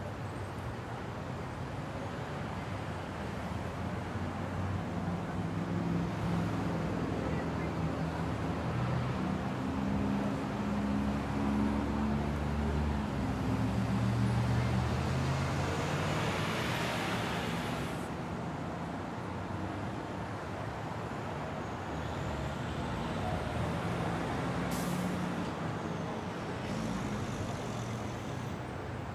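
City street traffic with a large vehicle's engine running close by, its low rumble building over the first half and then fading. A hiss swells up in the middle and cuts off suddenly, with a short, sharp hiss later on.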